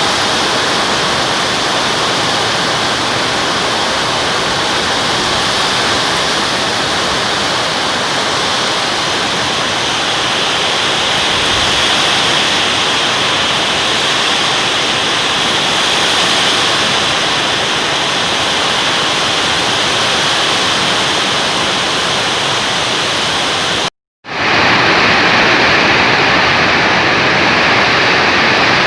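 Heavy rain pouring down in strong wind: a loud, steady, dense hiss. It cuts out for a moment about 24 seconds in, then resumes a little louder.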